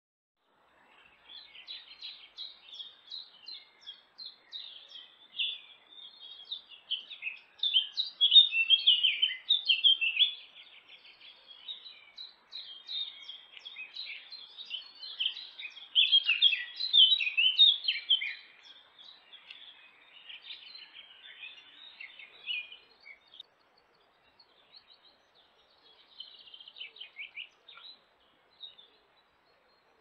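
Small woodland songbirds chirping and singing, several rapid twittering calls overlapping, with two louder spells before thinning out to scattered chirps near the end.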